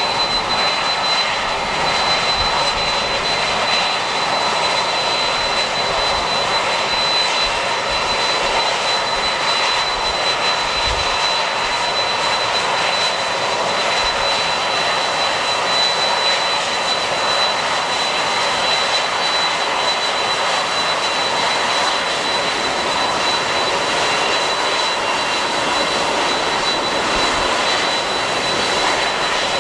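Jet airliner's engines running steadily, a constant rushing noise with a thin, high whine held at one pitch.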